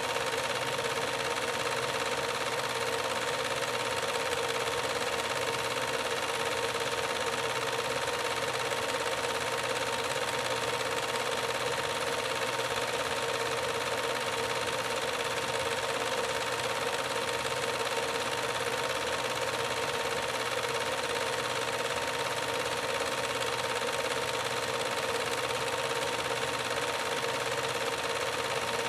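Home-movie film projector running: a steady whirring clatter mixed with hiss and a constant whine that does not change.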